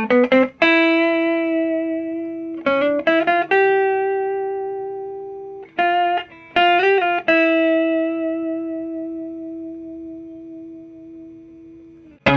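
1973 Fender Jazzmaster electric guitar on its neck pickup, played clean through a Swart AST Pro amp. Three short runs of single notes, each ending on a held note that rings out and slowly fades, with a brief pitch wobble about seven seconds in.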